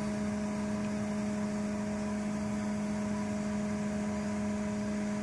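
Homemade wood-gas burner running steadily: the small computer fan that blows the gasifier hums, over the even hiss of the gas burning in a blue flame.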